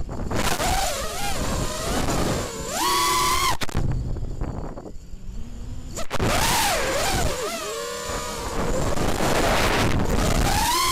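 FPV racing quadcopter's four Cobra 2204 2300kv brushless motors spinning 5-inch tri-blade props, whining with a pitch that swoops up and down sharply as the throttle changes through flips and rolls. The sound drops back for a couple of seconds near the middle, and a few sharp clicks cut in.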